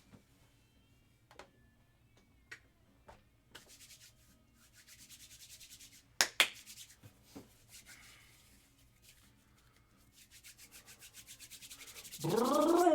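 Trading cards being handled: quick rhythmic rubbing strokes as cards slide over one another, in two runs, with scattered light clicks and two sharp clicks about six seconds in.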